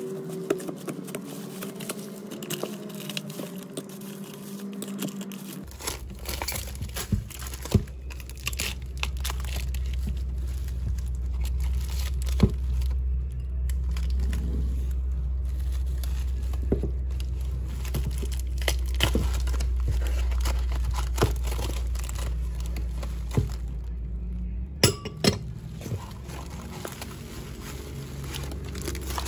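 Crumpled kraft packing paper crinkling and tearing as it is cut with scissors and pulled off clear glass bowls, with sharp clicks and knocks of glass and paper handling throughout. A low steady hum runs underneath from about six seconds in until near the end.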